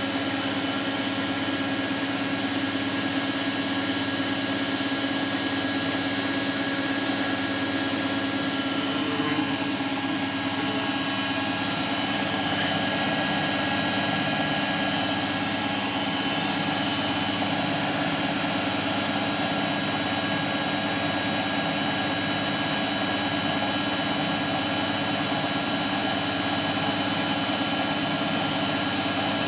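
Beko Eco Care WMA 1510 W washing machine in its final high-speed spin: a steady motor whine, several held tones over a rushing noise from the spinning drum.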